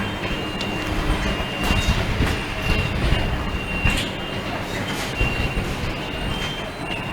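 Automatic soldering machine for chokes and transformers running: a steady mechanical rumble and hum, with a high whine that comes and goes and several sharp clicks.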